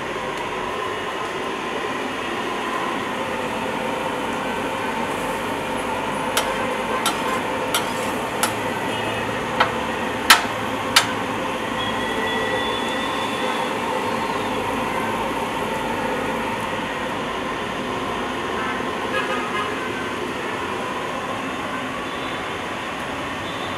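Metal spatula clinking and scraping on a large round steel griddle of frying minced meat: a run of about eight sharp strikes in the middle, over a steady hiss of frying and street noise.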